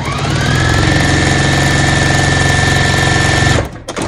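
Juki domestic sewing machine stitching straight quilting lines through a quilt top and batting. The motor whine rises as it speeds up, runs at an even speed, then stops near the end.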